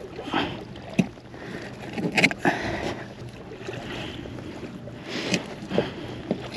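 Knife cutting strips from a porgy on a kayak's plastic deck board: scattered sharp taps and scraping sounds as the blade slices through skin and flesh against the board.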